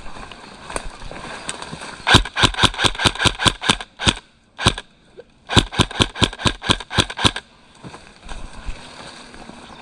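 Airsoft rifle firing quick strings of sharp shots, about five a second. There are two strings a second or two apart, with a single shot between them.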